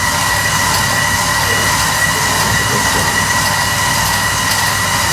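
A steady electric motor running continuously, a high whine over a rushing, rumbling noise.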